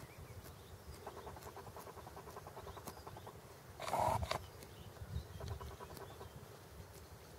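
Greylag goose grazing close up: quick runs of rapid ticking as its bill plucks and tears the grass. One louder short rasp about four seconds in.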